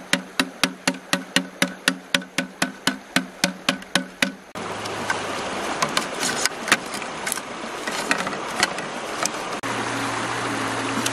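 Bamboo being knocked in quick, even strokes, about four a second, each with a hollow ring; the knocking stops about four and a half seconds in. Then the steady rush of a shallow river, with small scattered clicks of bamboo being handled and a low steady hum.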